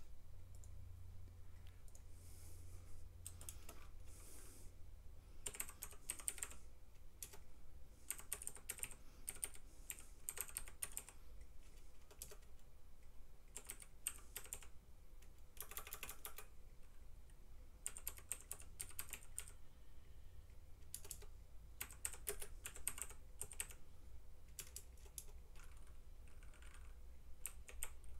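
Typing on a computer keyboard: short bursts of keystrokes separated by pauses, over a faint low hum.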